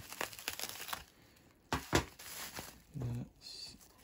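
Bubble wrap crinkling and crackling as it is pulled and torn off a potted plant by hand, with a couple of sharper knocks about two seconds in.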